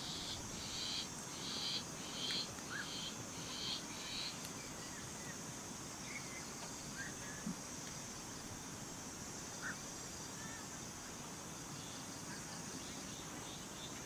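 Firewood burning in a small folding tent stove, with a few scattered sharp crackles and pops, over a steady high insect drone. Over the first four seconds a bird calls about seven times in quick succession, about two calls a second.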